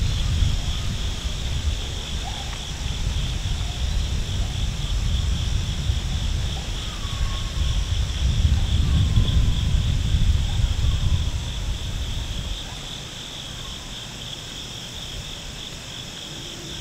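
Steady, high-pitched insect chorus, with wind buffeting the microphone as a low rumble that dies down about three-quarters of the way through. A few faint short falling chirps sound over it.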